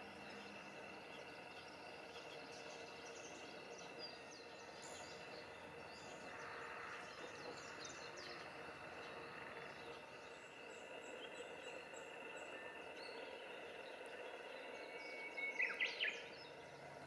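Quiet outdoor ambience of birds chirping over a faint steady hum, with a short loud run of about four bird call notes near the end.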